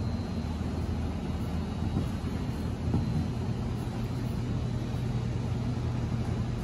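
Steady low rumble with a hum: the background noise of a large indoor riding arena. A few faint thuds come about two and three seconds in.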